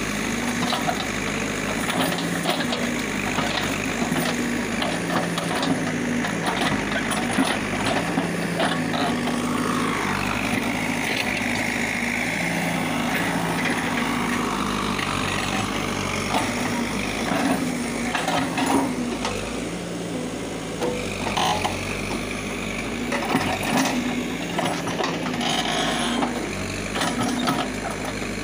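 Caterpillar backhoe loader's diesel engine running steadily under hydraulic load as the arm digs out and shakes a tree stump, with scattered knocks and cracks of roots and soil. A higher whine swells and fades around the middle.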